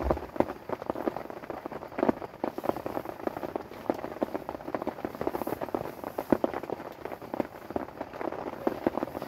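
Rain pattering on a tent, heard from inside: a dense, irregular crackle of drops hitting the fabric. A sleeping bag rustles as it is pulled up.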